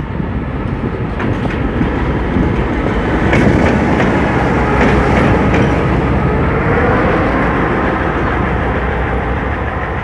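Materfer passenger coaches rolling slowly past on the track, the wheels clicking over rail joints most strongly in the middle, over the steady low rumble of a diesel locomotive.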